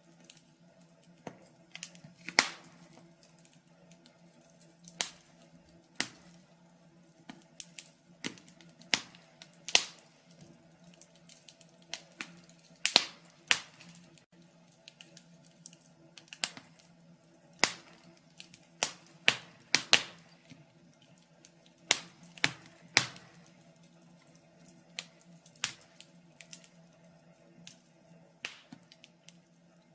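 Wood fire crackling: irregular sharp pops and snaps, the louder ones about once a second with smaller ticks between, over a faint steady low hum.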